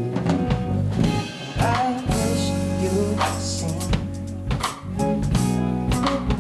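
Live band music: a hollow-body electric guitar and an electric bass playing over a steady drum-kit beat with cymbals.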